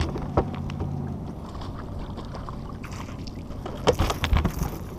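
A boat motor's steady low hum stops about a second in, followed near the end by a clatter of knocks and splashing.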